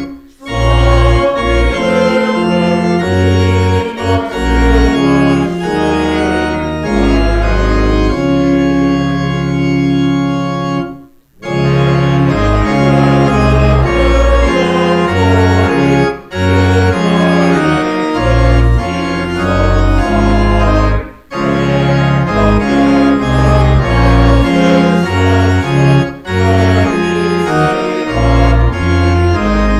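Church organ playing a hymn tune in full chords over a deep bass line. It breaks off briefly between phrases about every five seconds.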